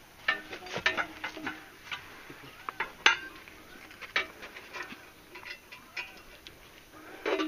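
Irregular metallic clinks and knocks from a hand water pump's chain and steel head as it is handled during repair work, with the loudest clank about three seconds in.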